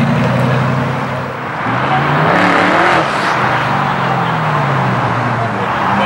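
Mercedes-Benz SLR McLaren's supercharged V8 running at low revs. About two seconds in it rises in pitch as the car accelerates, then eases back down near the end.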